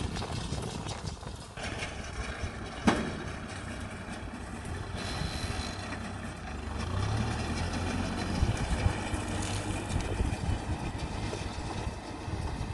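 Kubota tractor's diesel engine running steadily as it pulls and drives a small round baler through rice straw, with one sharp click about three seconds in.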